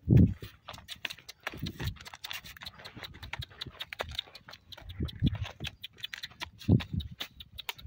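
A donkey's hooves clopping and crunching on a stony dirt track as it walks, with a steady scatter of short clicks and a few louder low thumps.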